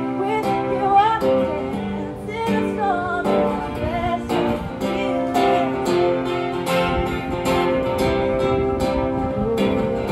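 A woman singing to her own strummed acoustic guitar; about halfway through her voice drops out and the guitar strumming continues alone.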